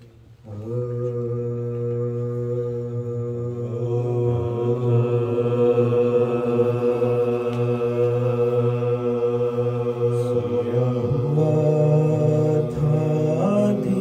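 Men's voices singing an Urdu devotional recitation a cappella, holding long drawn-out notes with the melody stepping up in pitch about eleven seconds in.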